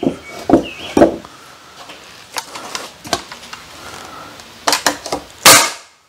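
Pneumatic nail gun driving nails into pine boards: a series of sharp shots with a short hiss of air, the loudest near the end, with lighter knocks of the boards between them.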